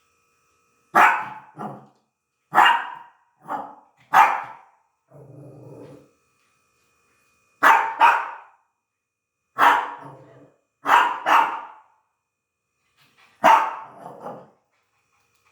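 A dog barking in short bursts of one or two sharp barks, about a dozen barks in all, with a lower, quieter growl about five seconds in. The dog is barking at a small lizard (a house gecko).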